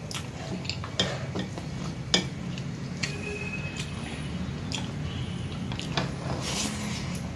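Fingers mixing rice and curry on a plate, with scattered light clicks against the plate and soft squelching. Near the end a handful is put in the mouth and chewed wetly.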